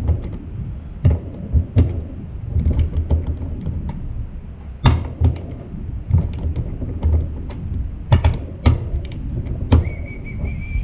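Metal hand tools and bike parts being handled: repeated sharp clinks and knocks over low rumbling handling noise, with a short steady high-pitched tone near the end.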